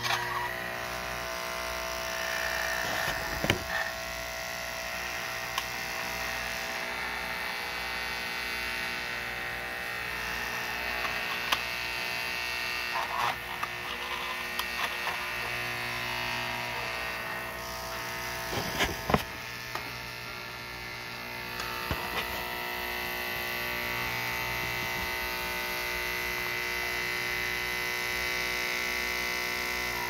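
Solenoid vibrator of an American Flyer 771 cattle farm accessory buzzing steadily, shaking the toy cattle along the platform and up the ramp into the stock car, with a few short sharp clacks and rattles.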